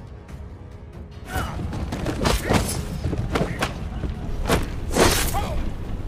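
Film battle soundtrack: soft music, then about a second in a loud melee begins, with a low rumble, several sharp clashing impacts and thuds, and men shouting.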